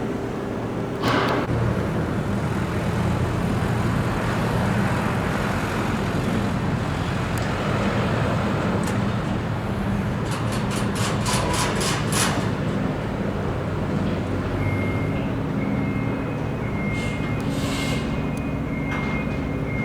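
Road vehicle engines running with steady traffic noise. A run of quick clicks comes about halfway through, and a broken high beeping tone sounds over the last few seconds.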